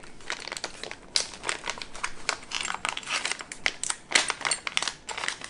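Clear plastic accessory bag crinkling and crackling as it is handled and opened by hand, an irregular run of sharp crackles.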